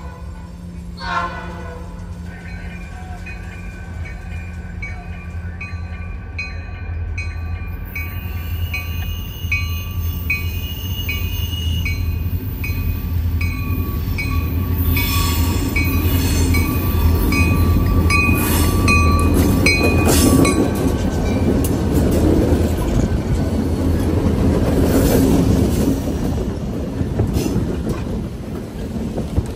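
A lashup of EMD diesel locomotives passing close under power, the deep engine rumble building to its loudest in the second half. Through the first two-thirds a locomotive horn sounds and a bell rings with an even beat.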